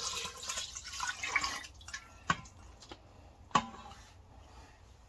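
Chicken broth poured from a glass measuring cup into a pot, a splashing, rushing pour that stops after about a second and a half. Then two sharp knocks, about a second apart.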